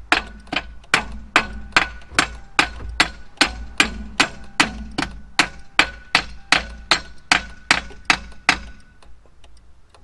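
A hammer striking the starter motor of a 2003 Mercury Grand Marquis from underneath the car, in steady blows about three a second that stop about eight and a half seconds in. The beating is meant to free a starter whose Bendix drive is not engaging.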